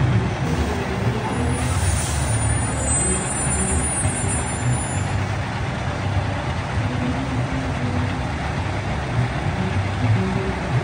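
Heavy truck engine running low and steady, with a short hiss about two seconds in.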